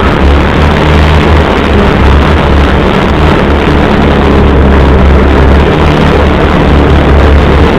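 CFMoto UForce 600 side-by-side's single-cylinder engine running steadily as the vehicle drives along, a loud low drone with the noise of the machine moving over rough ground.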